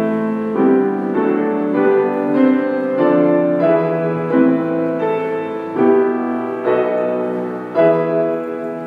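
Grand piano playing a slow piece in chords, one chord struck roughly every second; the last chord, near the end, is left to ring and fade.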